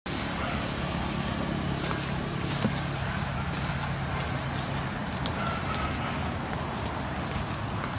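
Steady outdoor background noise with a constant high thin whine and a low hum that fades out about five seconds in, with a few faint clicks.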